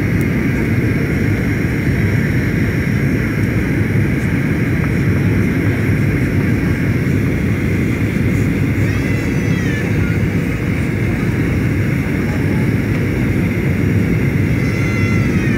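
Airliner landing in strong wind: a steady deep rumble of engine and airflow noise, with a few faint steady whines above it. Twice, about nine seconds in and again near the end, a brief high tone rises and falls.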